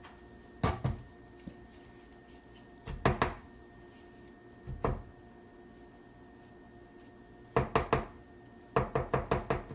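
Short clusters of knocks from a utensil striking a mixing bowl as banana bread batter is stirred and scraped, ending in a quick run of about six taps.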